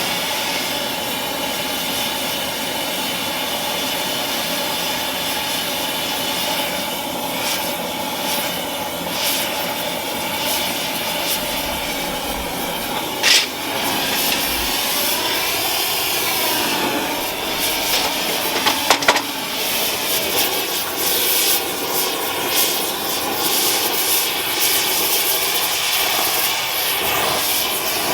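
Oxy-acetylene torch with a rosebud tip burning with a steady rushing hiss, used to scorch yellow pine. A sharp click about halfway through and a couple more a few seconds later.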